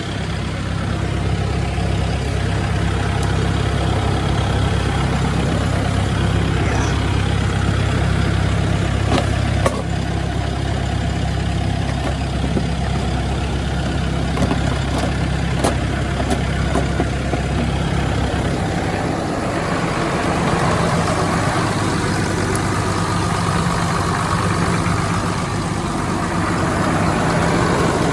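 Diesel engine idling with a steady low rumble, just after a cold-weather start that took a while. About two-thirds of the way in, the deepest rumble drops away and a higher hum comes forward.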